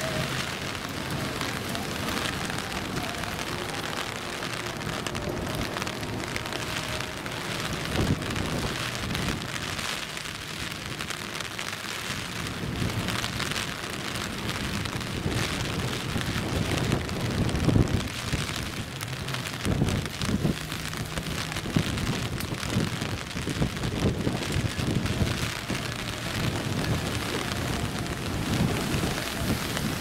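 Steady rain falling and pattering on surfaces, with scattered sharper drops and knocks. A faint low steady hum runs underneath.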